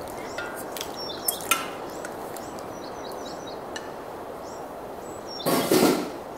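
Faint bird chirps over a steady background hiss, with a couple of light clinks of a ladle on a ceramic bowl about a second and a half in, and a short, loud rush of noise near the end.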